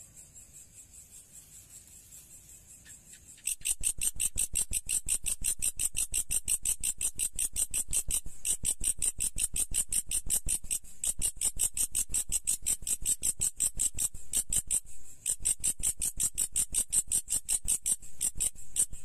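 An insect stridulating: a fast, even train of high-pitched chirp pulses. It is faint at first and much louder from about three and a half seconds in.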